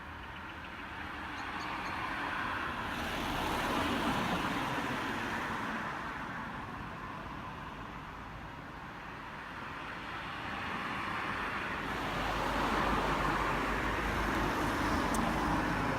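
Road traffic passing: a car's tyre and engine noise swells and fades over several seconds, then a second vehicle approaches with a lower rumble.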